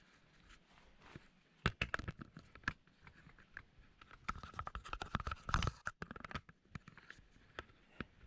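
Irregular clicks, knocks and light rattles of hands handling tools and parts, in two busy spells, over a faint steady hum.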